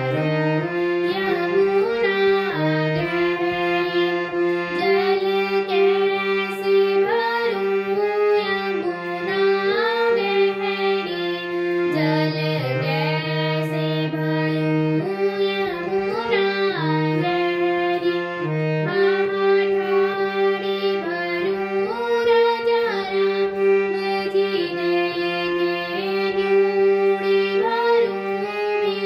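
Harmonium playing a melody in sustained, reedy tones over held low notes, with a girl singing a Holi song along with it.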